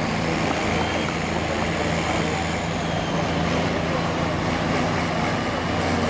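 Diesel farm tractor engine running at steady revs while pulling the sled, heard from far down the track.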